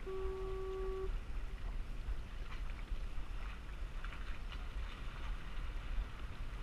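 Water lapping against a kayak on open water, with a steady low wind rumble on the microphone and a few soft splashes or ticks. A steady humming tone sounds for about the first second.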